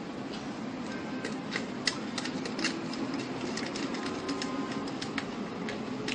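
Small irregular clicks and taps of wires and a wall switch being handled while the wires are connected to its terminals, over a steady hiss.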